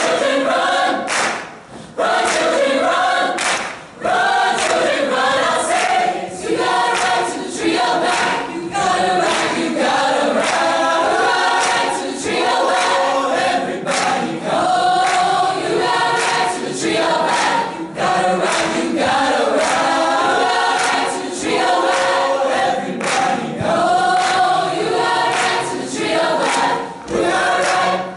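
Large youth choir of mixed voices singing a gospel spiritual in harmony, with hand claps on the beat.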